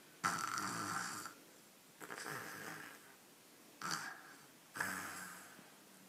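Sleeping toddler snoring through his open mouth: four noisy snoring breaths, each about half a second to a second long, with short quiet gaps between them.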